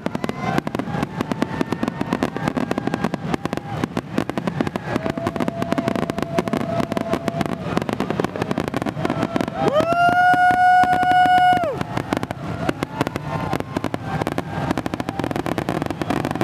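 Fireworks finale barrage: a rapid, dense run of shell bursts and crackling, with several whistling tones over it. The loudest is a steady high tone of about two seconds, about ten seconds in.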